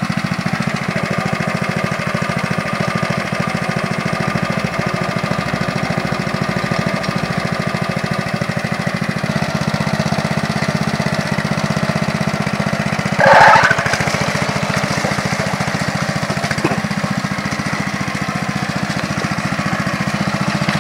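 Single-cylinder Honda petrol engine of a mini hand tractor running steadily, its firing even and rapid. About two-thirds of the way through there is a short, loud burst of sound, the loudest thing here.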